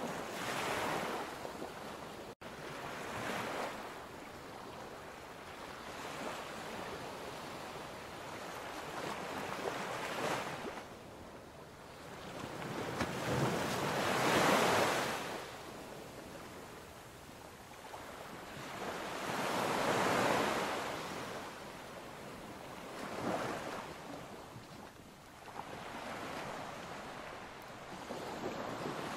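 Ocean surf: waves rolling in and washing back, a swell of rushing water every few seconds, with a split-second gap a couple of seconds in.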